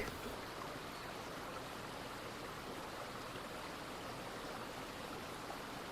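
Faint, steady rush of a small brook's running water, with no other sound standing out.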